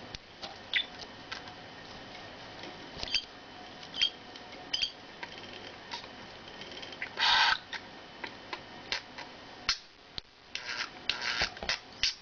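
Pet bird making soft clicks and short high chirps, with one brief harsh squawk about seven seconds in and a run of chatter near the end.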